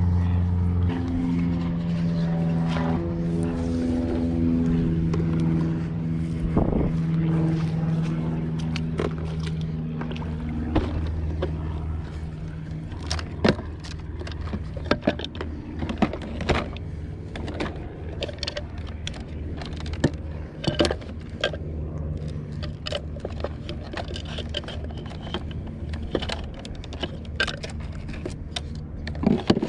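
An engine hums steadily and fades away over the first dozen seconds. After that come scattered clicks and knocks of gear being handled on a paddleboard.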